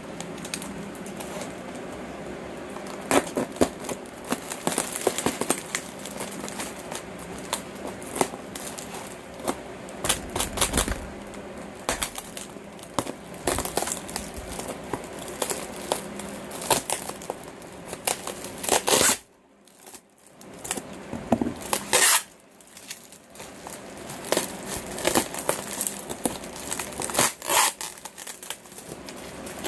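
Clear plastic air-column cushion packaging crinkling and rustling as it is handled and pulled at, with many sharp crackles. It goes quiet briefly about two-thirds through, then a loud crackle follows.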